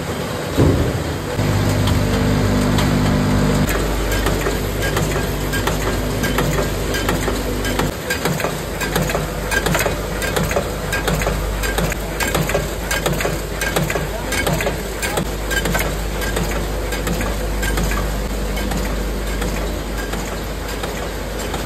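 Snack-packaging machinery running: steady mechanical noise dense with rapid clicking and rattling, with a low hum for the first few seconds.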